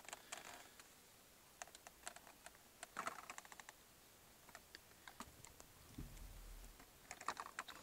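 Handling noise: faint, irregular light clicks and taps as a cardboard-and-plastic toy-car box and the camera are held and moved.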